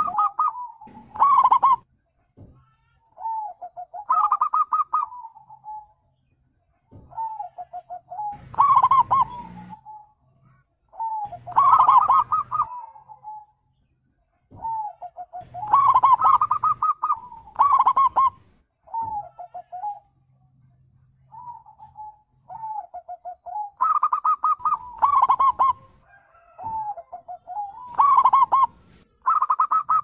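Zebra dove (perkutut) calling: a repeated song of quick, rattling coo notes, one phrase every two seconds or so with short pauses between.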